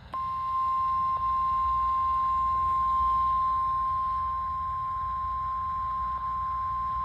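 NOAA Weather Radio 1050 Hz warning alarm tone: one long, steady beep that starts just after the opening, sounded as a weekly test of the alert system. It dips briefly twice and has radio noise beneath it.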